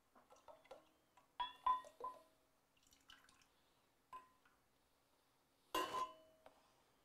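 Heavy cream pouring into a stainless-steel KitchenAid mixer bowl, with soft drips and splashes and a few light ringing taps on the bowl. About six seconds in, the cup knocks against the bowl's rim with a louder ringing clink.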